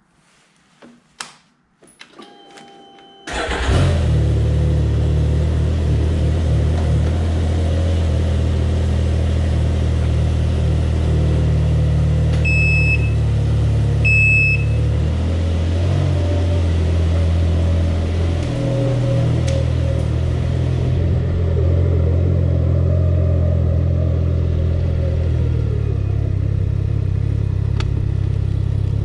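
Can-Am Ryker Rally's engine starting after a few clicks from the controls, catching about three seconds in, then running steadily at idle and low speed. Two short high beeps sound about halfway through.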